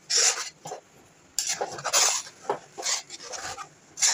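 A spatula stirring and scraping thick potato halwa around a metal kadhai in irregular scraping strokes, with a short pause about a second in.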